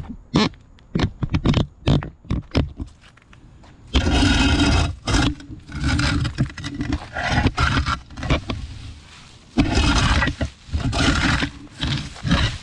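Shovel scooping up edging debris: a run of short knocks and taps, then four long scrapes of about a second each as the blade is pushed along.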